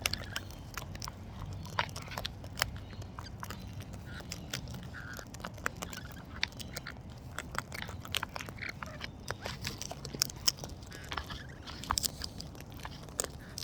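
Sulphur-crested cockatoo crunching and nibbling with its beak close by: a dense, irregular run of sharp clicks and cracks.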